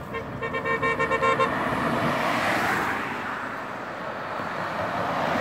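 Police car horn sounding a rapid run of short toots for about a second and a half, followed by the rush of vehicles passing close by, swelling twice.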